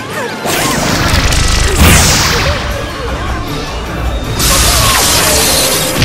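Layered cartoon sound effects over music: crashes and whooshes, with a falling sweep about two seconds in and a loud rushing noise over the last second and a half.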